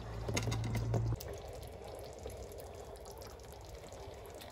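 Goulash sauce simmering in a frying pan, soft bubbling with small pops. For about the first second a wooden spatula stirs through the sauce, louder, stopping abruptly.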